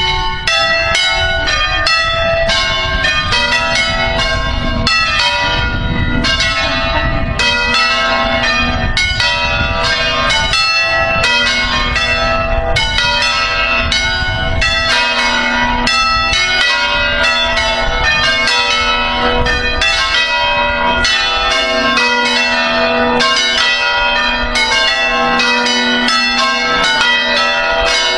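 Peal of five hand-rung swinging church bells tuned to B3 (Si3), striking loudly in quick overlapping succession. This is the solemn five-bell concerto that calls the faithful to Mass.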